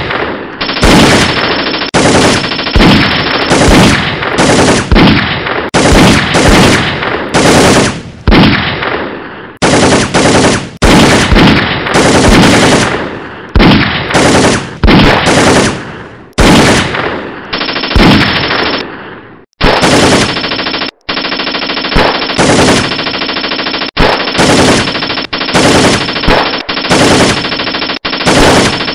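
Machine-gun fire sound effects: repeated bursts of rapid automatic fire, each lasting about a second and coming about once a second, running into a long, nearly continuous stretch of fire from about twenty seconds in.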